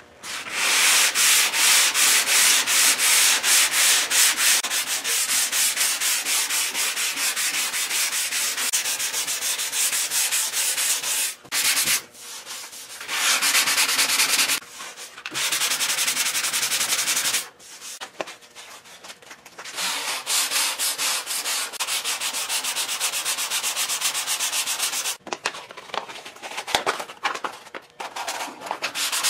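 Sandpaper on a hand sanding block rubbing over body filler on a car fender, in quick back-and-forth strokes broken by a few short pauses. It is a light pass with 180-grit paper to smooth out the coarser scratches.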